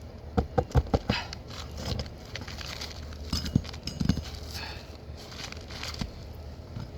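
Irregular hollow knocks and taps from work on an asphalt shingle roof. A quick run of them comes in the first second or so, then scattered single ones follow.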